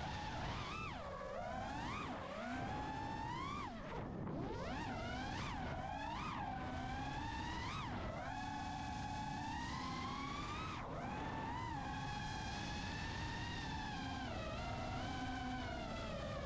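Brushless motors and propellers of a 6S FPV freestyle quadcopter whining, the pitch swooping up and down with quick throttle changes during the first half, then holding higher and steadier with brief dips.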